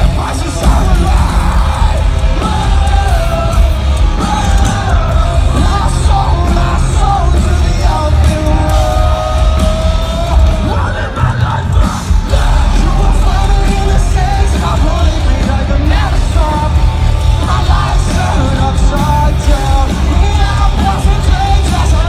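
Live rock band playing loud through a PA: distorted electric guitars, bass and drums under sung and yelled vocals, with a long held sung note about halfway through. Heard from among the audience, recorded on a phone.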